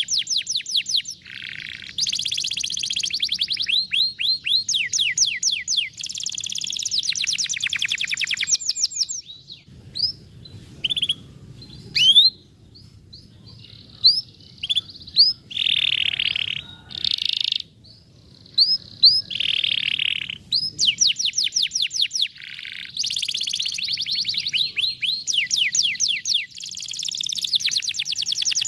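Canary singing: fast rolling trills of rapidly repeated rising notes. The middle stretch thins to scattered single rising chirps and a couple of short buzzy phrases before the dense trills return. It is a trigger song played to get a reluctant canary to sing.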